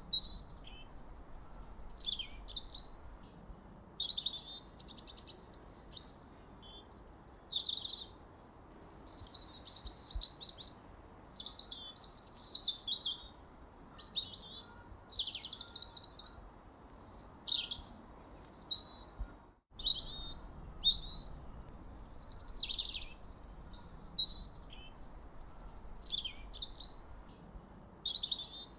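A songbird singing a continuous run of short, varied, high chirping phrases, one after another every second or two, over a faint steady hiss. The sound cuts out for an instant about two-thirds of the way through.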